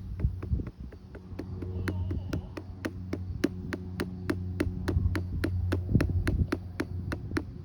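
Hand patting the back of a RealCare infant simulator doll to burp it: quick regular pats, about four or five a second, starting about a second in, over a low steady hum.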